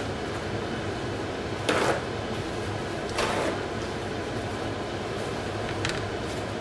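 A sheet of paper rustling and crinkling as it is laid over a pot of biryani and pressed around the rim to seal it for dum cooking. There are three short rustles, the loudest about two seconds in, over a steady fan hum.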